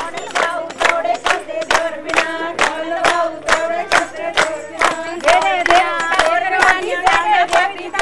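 A group of women singing together over steady rhythmic handclapping, about three claps a second.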